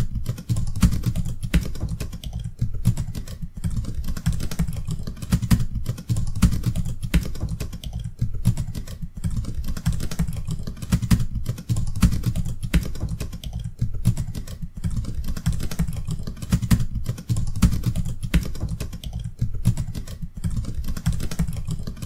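Continuous typing on a computer keyboard: rapid, irregular keystroke clicks, several a second.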